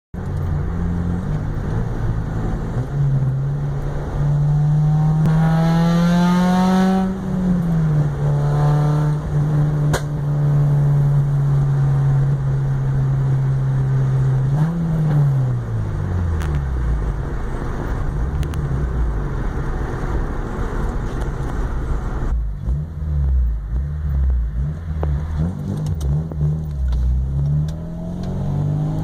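Acura RSX Type-S 2.0-litre four-cylinder engine running, its revs climbing a few seconds in, then dropping and holding steady. The revs rise and fall again around the middle and waver unevenly near the end. The car is being shown off for a noise it is making, which is not named.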